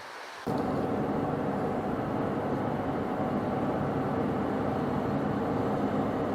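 Van driving at steady speed: a constant engine hum over road noise, starting abruptly about half a second in.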